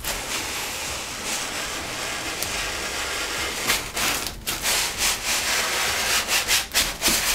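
A large Styrofoam packing block rubbing and scraping against the sides of a cardboard box as it is lifted out, with its plastic wrapping rustling. Steady rubbing at first, then a run of sharp crackles from about halfway.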